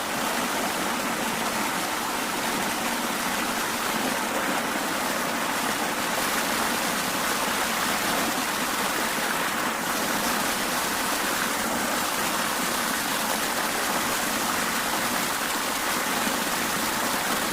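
River water running steadily, an even, unbroken rush of flowing water.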